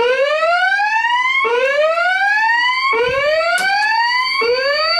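Fire alarm voice-evacuation system sounding its whoop tone between spoken messages: four rising sweeps, one about every one and a half seconds, over a steady high tone.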